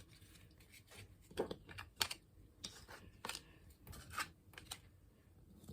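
Basketball trading cards being handled and leafed through by hand: faint, scattered flicks, taps and rustles of card stock, about half a dozen spread irregularly.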